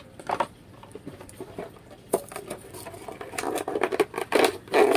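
Carded action-figure package being torn and pulled open by hand: scratchy rustling and crackles, sparse at first and growing busier and louder from about halfway through.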